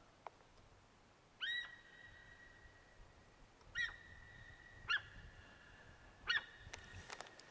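Sika deer calling: four short, high-pitched calls spaced a second or two apart, each ringing on in an echo.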